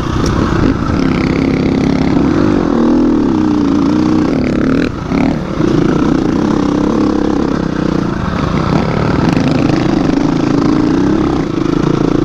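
Dirt bike engine running under load on a trail, its pitch rising and falling with the throttle, with a brief drop in revs about five seconds in.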